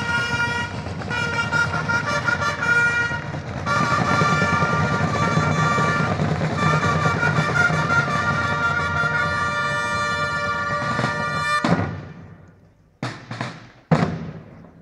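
Clarions (long natural trumpets) playing a fanfare of long held notes over drumming, with the notes changing every few seconds. The fanfare cuts off about three-quarters of the way through and rings out briefly. Separate drum strokes then start a new beat near the end.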